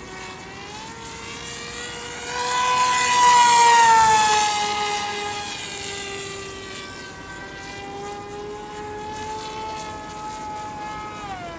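An FPV Raptor RC plane's electric motor and propeller whining at full throttle as it flies overhead. The whine swells to its loudest about three to four seconds in and falls in pitch as the plane passes. It then holds steady and dips in pitch again near the end.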